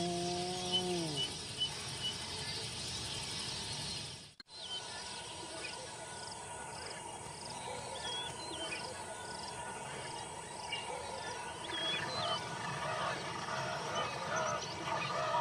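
Dawn wildlife ambience. It opens with one drawn-out animal call that holds its pitch for about a second and then drops. Small high bird chirps and a faint insect buzz follow, and more bird calls come toward the end.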